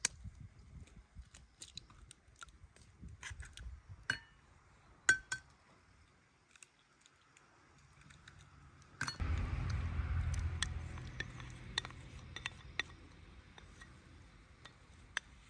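Light clinks and clicks of dishes and utensils being handled, a few ringing briefly. About nine seconds in, a low rumbling noise starts suddenly and fades away over a few seconds.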